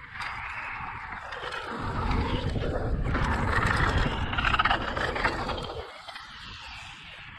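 Mountain bike rolling fast down a dirt and gravel trail: tyre noise and rattle with wind buffeting the microphone, heaviest in the middle and easing near the end.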